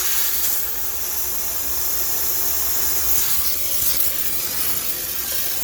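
High-pressure steam cleaner jetting steam with a steady, loud hiss, used to sterilize a washing machine; the hiss shifts slightly about three seconds in.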